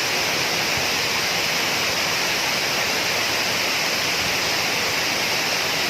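Waterfall water rushing, a steady, even hiss with no change.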